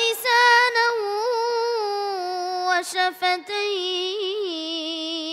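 A boy reciting the Quran in a slow melodic chant, drawing out long ornamented notes.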